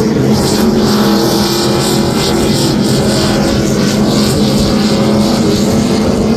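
Offshore racing powerboat running flat out, its engines a loud, steady pitch under the hiss of spray.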